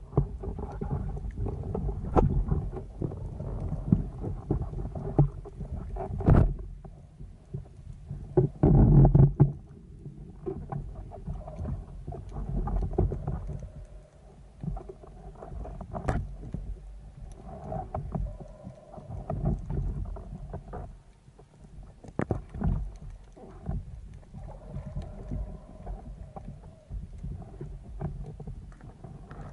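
Muffled underwater noise picked up through a camera's waterproof housing as a diver swims: low rumbling water movement with scattered clicks and knocks, the loudest knock about nine seconds in.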